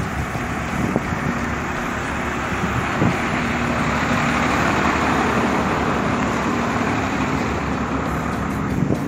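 Road traffic noise from passing motor vehicles, swelling to its loudest in the middle and easing off, with a steady low engine hum and a few faint knocks.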